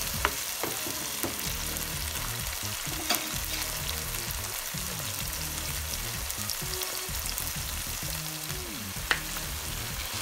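Chopped onion, sweet peppers, tomato and scallion sizzling as they sauté in coconut oil in a frying pan. A wooden spoon stirring scrapes and knocks against the pan a few times, most sharply about three seconds in and near the end.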